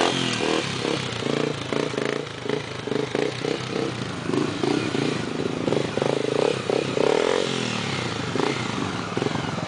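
Honda Tornado dirt bike's single-cylinder four-stroke engine running under throttle, its note rising and falling as the rider rides it across loose dirt, with a drop in revs about seven and a half seconds in.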